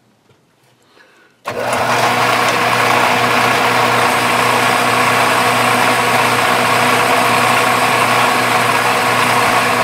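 Metal lathe switched on about a second and a half in, then running at steady speed: a loud, even machine hum with several steady whining tones.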